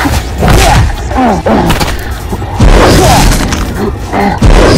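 Background music overlaid with dubbed fight sound effects: heavy punch thuds and booms. The hits land loudest about two and a half seconds in and again near the end.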